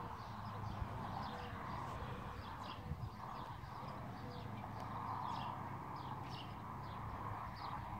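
Small birds chirping over and over, short high downward-sliding notes, over a steady low hum and hiss.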